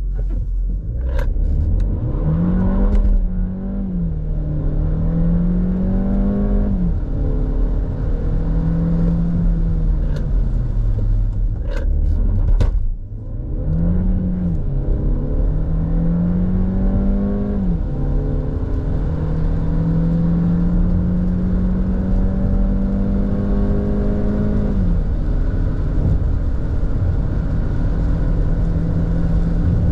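Cupra Ateca's 1.5 TSI four-cylinder turbo petrol engine, heard from inside the cabin. Its revs rise and fall a few times over the first ten seconds or so. About twelve seconds in it pulls hard from a standstill at full throttle, the pitch climbing through each gear and dropping at the automatic gearbox's upshifts about a second, six and thirteen seconds after the launch, then holding steady. A few sharp clicks come near the start and just before the launch.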